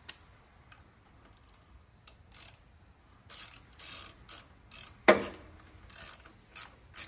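Ratchet wrench clicking in short, uneven strokes as the distributor clamp nut is tightened, with one louder metallic knock about five seconds in.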